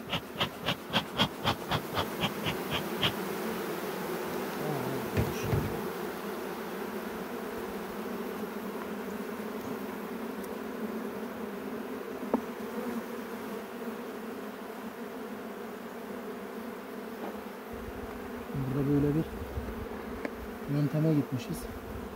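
A bee smoker's bellows is pumped in quick puffs, about four a second, for the first three seconds. Then comes the steady buzzing of a honeybee colony in the opened hive, with a few louder buzzes near the end.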